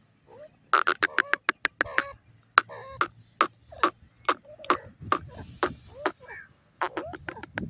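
Grey francolins calling: loud, sharp, clipped notes in irregular runs, with a quick string of them near the end.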